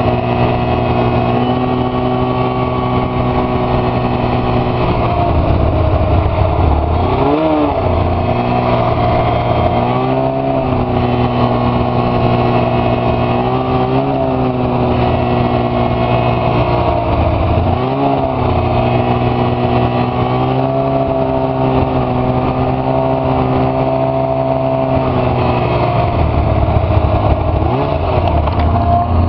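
Arctic Cat F6 Sno Pro snowmobile's 600 cc two-stroke twin running under way, its note swinging briefly in pitch about five times as the throttle is eased and reopened.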